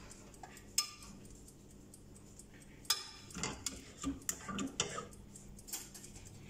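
Metal spoons and a ladle clinking and scraping against a foil baking tray, a glass dish and a steel saucepan while sauce is spooned onto lasagna layers: a few sharp clinks, bunched together from about three to five seconds in.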